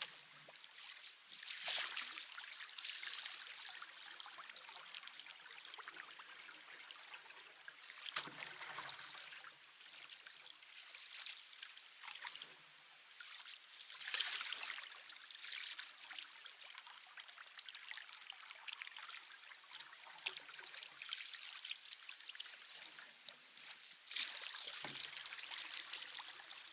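Canoe paddle blade held in the water alongside a moving canoe for static draw and pry strokes, with water rushing and trickling past the blade. Now and then it swells into a louder swish as the blade is set or moved.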